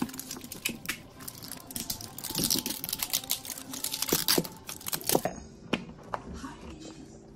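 Rapid crackling and clicking of a sticker-strip seal being peeled off a plastic L.O.L. Surprise toy ball, thinning out to scattered clicks after about five seconds.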